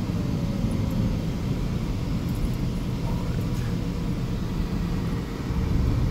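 A car driving, heard from inside the cabin: a steady low rumble of engine and tyre noise, with a faint hum that slowly drops in pitch.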